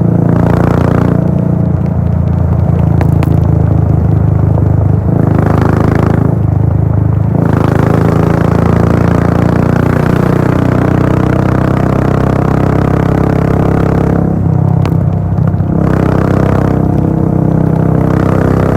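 Royal Enfield Bullet 500's single-cylinder engine running through a Gold Star full-system exhaust, holding a steady exhaust note while cruising on the highway. A rushing noise rises and falls over it a few times.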